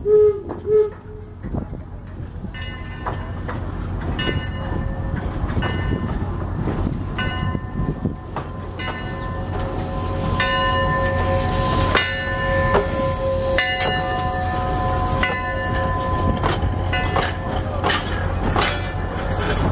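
Eureka & Palisade #4, an 1875 Baldwin 4-4-0 steam locomotive, gives two short whistle toots, then rolls past with its bell ringing about every one and a half seconds. The clank of its running gear and a low rumble grow as it nears.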